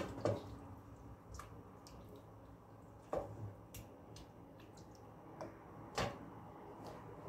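Wooden spoon serving stew from a steel pot onto a ceramic plate: a few light knocks and clicks at irregular intervals, the clearest about three and six seconds in, over quiet room noise.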